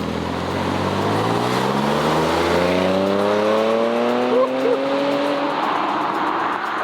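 Audi S5's engine accelerating hard, its pitch climbing steadily for about five and a half seconds, then dropping away near the end.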